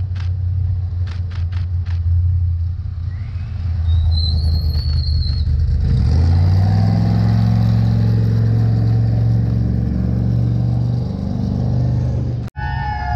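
Vintage Ford F-100 race truck's engine running at low speed, then picking up about six seconds in and holding a louder, steady drone; the sound cuts off abruptly near the end.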